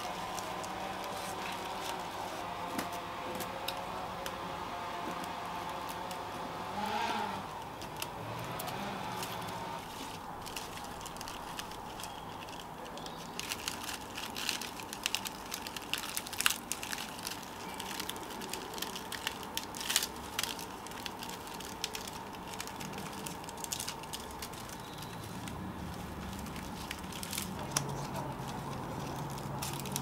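Dry palm leaflets rustling and crackling as they are bent and woven by hand, with a run of sharp snaps and crackles through the middle as the leaflets are handled and trimmed with pruning shears. A steady low hum lies underneath.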